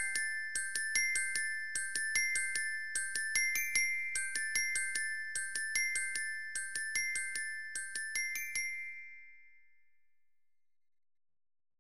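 Background music: a bright, bell-like melody of high struck notes, about three or four a second, that stops about eight and a half seconds in and rings away to silence.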